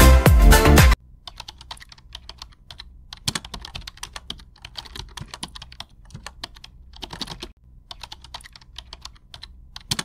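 Music cuts off about a second in, followed by a quiet run of rapid keyboard-typing clicks with a few short pauses.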